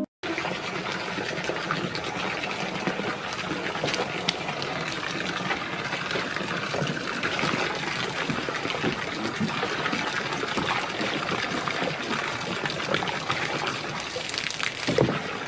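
Water splashing and trickling steadily.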